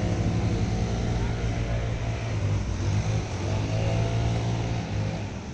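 A motor vehicle's engine running with a steady low hum, which dies away near the end.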